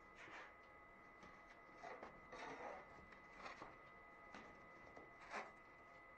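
Faint scraping and rustling of thin cut plywood pieces being slid and lifted off the CNC router's bed, a few separate handling sounds with the strongest near the end. A faint steady high whine underneath.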